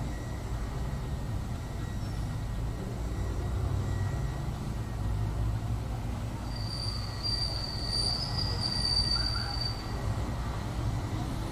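Steady low rumble of background noise, with a thin high-pitched squeal that lasts about three seconds just past the middle.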